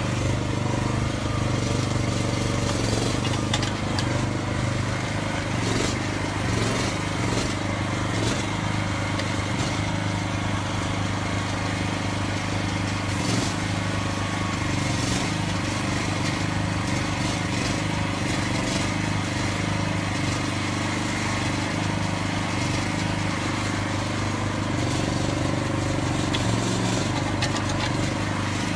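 Mini excavator's small engine running steadily as the arm and bucket dig soil, with a few brief knocks from the bucket working the ground.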